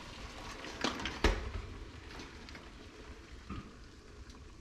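A few metal clanks and knocks as a steaming stockpot and its lid are handled in a stainless steel kitchen sink, the loudest about a second in, then a few light clicks.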